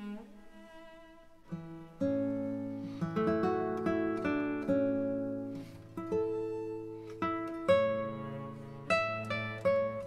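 Gentle instrumental background music: a melody of plucked string notes, guitar-like, over held low notes that come in about two seconds in.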